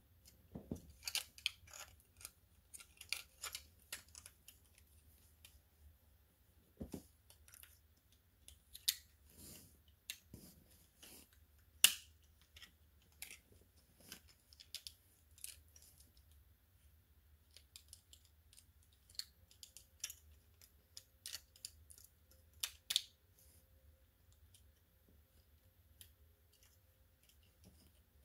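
Irregular sharp clicks and light rattles of hard plastic toy figures being handled. They come in scattered clusters, with the single loudest click about twelve seconds in.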